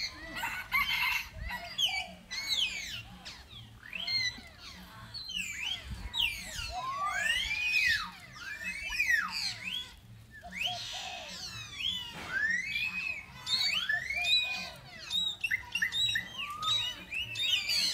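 Young macaques calling: many overlapping high, arching squeals and coos that rise and fall in pitch, several a second from more than one animal.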